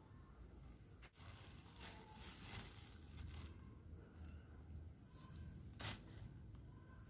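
Faint crinkling and tearing of a thin plastic bag as a baby monkey rummages in it for longans. One sharp click about six seconds in, as it bites into a longan's shell.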